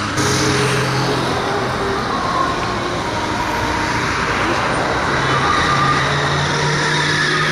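Street traffic noise: road vehicles running along a busy city avenue, with a steady low engine hum under an even roar.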